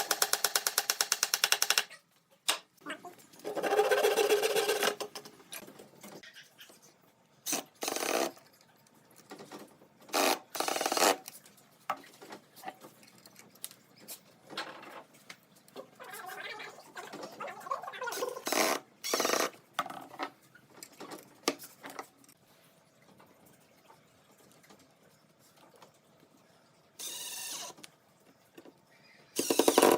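Woodworking sounds. A handheld power tool runs with a rapid, even chatter for the first two seconds, then again briefly with a steady whine at about four seconds. After that come scattered short knocks and scrapes of wood and tools being handled, with quiet gaps between them.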